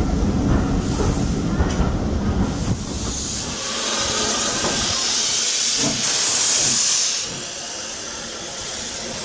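Steam locomotive moving slowly alongside the platform. A low rumble for the first few seconds gives way to steam hissing, which is loudest about six to seven seconds in and then eases.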